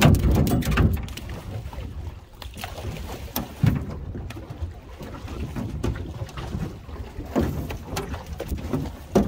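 Wind rumbling on the microphone, with a string of sharp knocks and clatters as a small hammerhead shark thrashes on the line at the side of a boat. The rumble is loudest in the first second.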